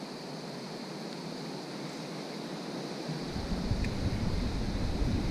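Steady rush of flowing river water. About three seconds in, low rumbling wind noise starts buffeting the microphone and grows louder.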